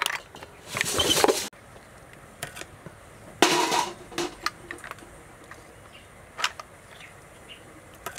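A knife clicking and scraping against snail shells as they are cut open, with the shells clattering together in a plastic basket. There are two half-second rattling scrapes, about one and three and a half seconds in, and scattered sharp clicks in between.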